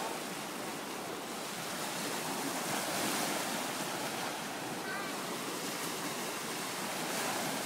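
Small Gulf of Mexico waves washing onto the beach: a steady, even rush of surf that swells and eases slightly.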